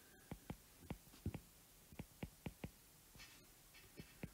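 Faint, sharp taps of a stylus on a tablet's glass screen while handwriting, about a dozen quick clicks in small irregular groups.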